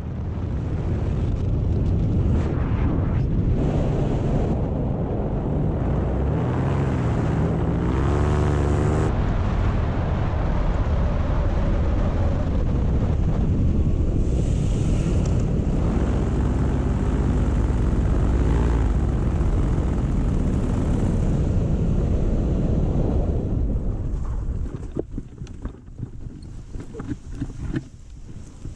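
Paramotor engine and propeller running steadily, with wind on the microphone. The engine sound drops away near the end, leaving wind noise and a few knocks.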